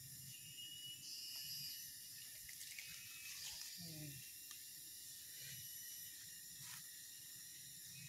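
Faint outdoor ambience: a steady high-pitched hiss with thin, even tones. A short, low, wavering vocal sound comes about four seconds in.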